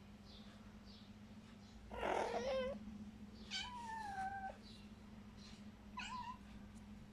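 Kitten meowing three times: a loud, harsh call about two seconds in, a longer drawn-out meow a second and a half later, and a short meow near the end.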